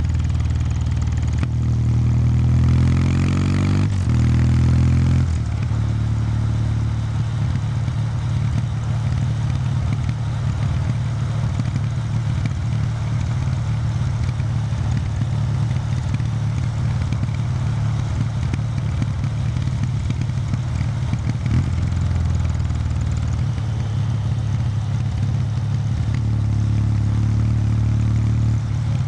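Kawasaki W800 Street's air-cooled parallel-twin engine through its stock exhaust, heard while riding. The note rises in the first few seconds with a break about four seconds in, like a gear change, then settles to a low, steady note for most of the stretch. Near the end it rises again.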